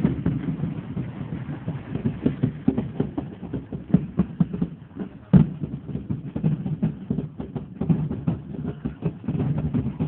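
A street-parade drum contingent beating barrel and wooden drums in a fast, loose rhythm over crowd murmur, with one sharper, louder strike about five seconds in.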